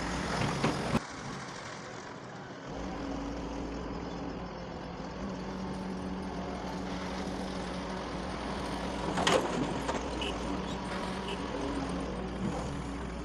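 Doosan DX140 hydraulic excavator's diesel engine running steadily while it works, with one sharp knock about nine seconds in.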